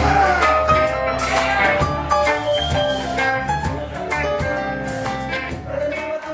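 A rock band playing, with electric guitar and drums, getting gradually quieter toward the end.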